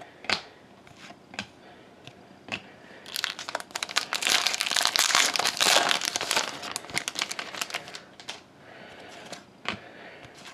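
A few sharp clicks of trading cards being flipped through. From about three seconds in, for some five seconds, a foil trading-card pack wrapper is opened and crinkled; this dense crackling is the loudest part. Card clicks follow again near the end.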